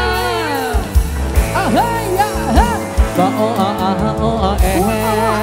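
Live Thai sound-truck band music played loud: heavy low drum hits under a melody that glides and bends in pitch over held chords.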